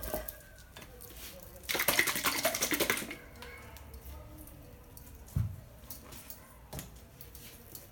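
Wooden spoon stirring chopped broccoli salad in a glass bowl, scraping and clinking against the glass. The loudest part is a dense burst of clatter about two seconds in that lasts just over a second, then it goes quiet apart from a single low thump past the middle and a click near the end.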